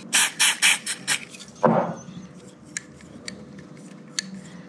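Aerosol electronic contact cleaner sprayed into an electric guitar's potentiometer in a quick run of short hissing bursts, to clean out the grime that makes the pot crackle, which the player blames on cigarette smoke. A few faint clicks follow as the pot is worked by hand.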